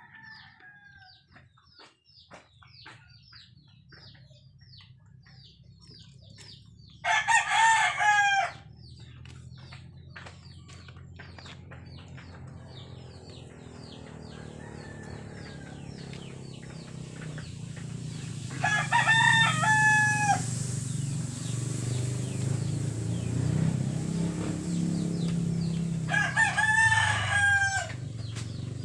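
A rooster crowing three times, each crow about a second and a half long: about seven seconds in, about nineteen seconds in, and near the end. Quick high chirps run through the first half, and a low hum grows louder in the second half.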